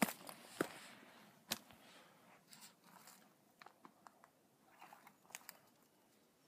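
Footsteps crunching and snapping through dry leaf litter and twigs in an irregular, uneven rhythm. The loudest crunches come in the first second and a half, with fainter crackles after.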